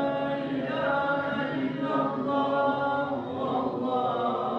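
A man's unaccompanied voice chanting Islamic recitation in Arabic, holding one long, drawn-out melodic phrase with slowly gliding notes.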